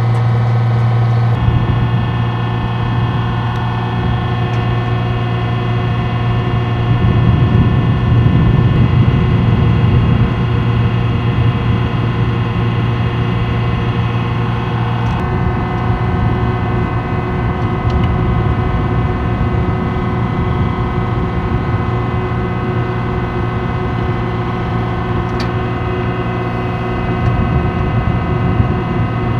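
Military vehicle's engine running steadily, heard from aboard: a constant low drone with a steady whine above it and a rough low rumble that grows louder about seven seconds in, then settles.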